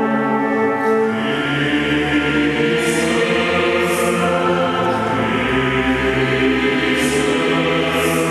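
Choir and symphony orchestra performing a requiem, holding sustained chords, with deeper bass notes coming in about a second in.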